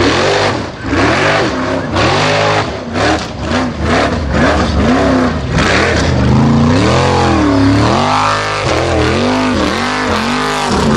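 Formula Offroad buggy's engine revving hard, its pitch swinging up and down about once a second as the throttle is blipped over and over to keep the wheels driving through mud and up a steep slope. A run of sharp cracks sounds a few seconds in.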